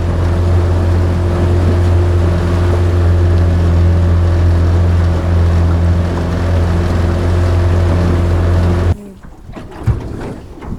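Outboard motor running at a steady pitch, with splashing and wind noise, cutting off suddenly about nine seconds in.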